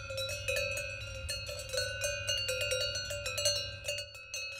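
Livestock bells on a grazing flock clanking irregularly: metal bells struck several times a second, each ringing on at a few fixed pitches. The strikes thin out briefly near the end.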